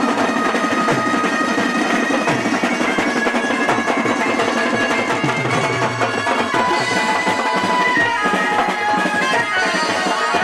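Music with steady drumming under a sustained melody line.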